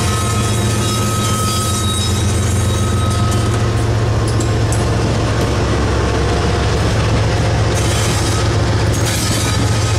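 Union Pacific diesel locomotive passing close at low speed: a steady low engine drone under the rumble of wheels on rail, with thin high squealing tones from the wheels.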